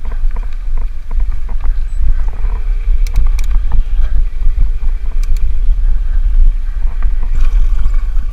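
Heavy low rumble of wind buffeting the microphone, with a few sharp clicks about three seconds in and again a little after five seconds.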